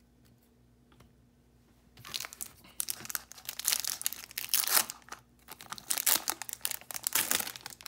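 Foil wrapper of a Topps baseball card pack being torn open and crinkled by hand: a run of crackling rips that starts about two seconds in.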